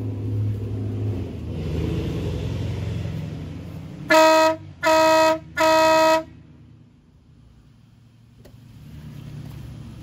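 WOLO 619 Big Bad Max air horn on a pickup truck, sounded in three short, steady-pitched blasts in quick succession with the hood closed, which mutes it a little. A low rumble runs under the first few seconds before the blasts.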